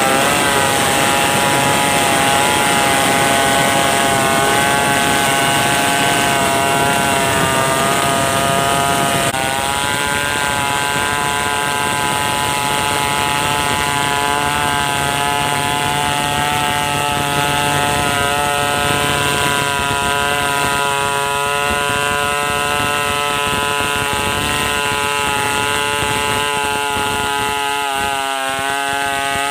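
Stihl 070 two-stroke chainsaw running at high revs while cutting wood, its pitch wavering slightly under load. About nine seconds in the note drops a little and runs on steadily.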